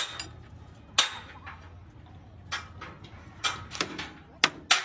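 Sharp metallic clanks and clinks of hand tools and parts knocking against the steel truck chassis and its jack, about eight irregular strikes, a couple with a brief ring, over a faint low hum.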